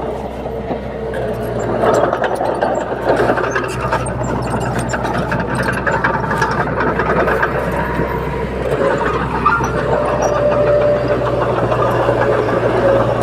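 Crawler bulldozer's diesel engine running steadily, with a low drone and scattered clanks and rattles.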